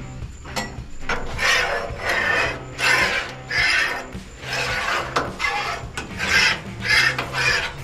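Metal spatula scraping back and forth across the steel cooktop of a Blackstone griddle, a rasping stroke a little more than once a second, starting about a second in.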